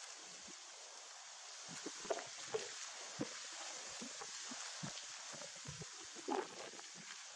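Faint rustling and scattered light taps from a baby monkey scrambling over a lap and reaching into dry leaf litter, over a steady background hiss; a few slightly louder rustles about two seconds in and again near the end.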